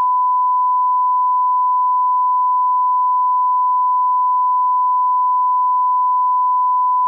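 One continuous electronic beep at a single unchanging pitch: a pure test tone, loud and steady throughout.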